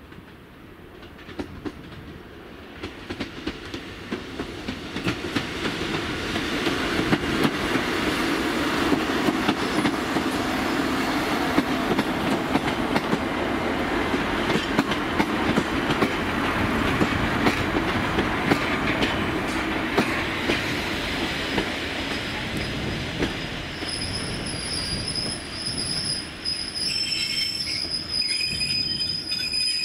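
A train running on the line, growing louder over the first several seconds and then running steadily past, its wheels knocking sharply and often over the track. A high, steady squeal joins in near the end.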